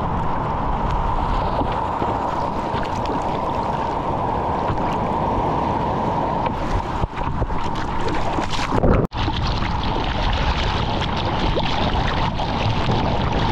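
Wind buffeting the microphone over ocean surf, with a steady high hum beneath it. The sound drops out for an instant about two-thirds of the way in.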